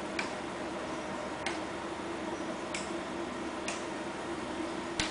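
Hoes striking and scraping dry, hard soil: sharp knocks about once a second, the loudest near the end with a dull thud, over a steady low hum.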